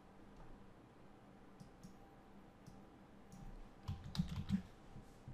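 Faint computer keyboard keystrokes and mouse clicks: a few scattered single clicks, then a quick cluster of keystrokes about four seconds in.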